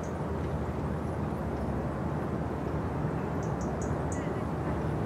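Steady low engine drone of a small general cargo ship passing close by on the river. About three and a half seconds in come a few short, high chirps.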